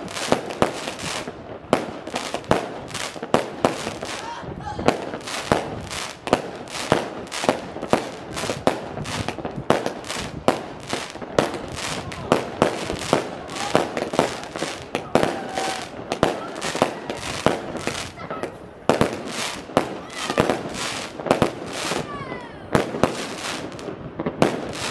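Fireworks display: a continuous, irregular run of sharp bangs from bursting shells, several a second, with voices in the background.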